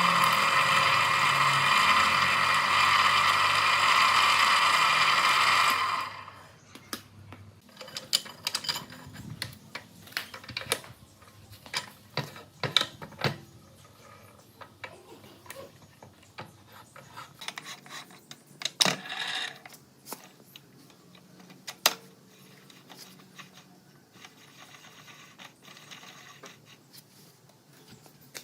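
A motor runs steadily for about six seconds, then stops abruptly. Afterwards come scattered clicks and light knocks of parts and tools being handled.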